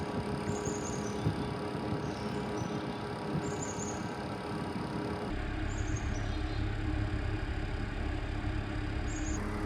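Portable gas inverter generator running with a steady hum, its tone shifting about five seconds in. Short high insect chirps repeat over it every second or two.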